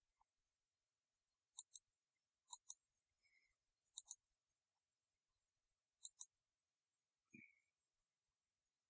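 Computer mouse button clicking: four pairs of short sharp clicks spread over several seconds, otherwise near silence.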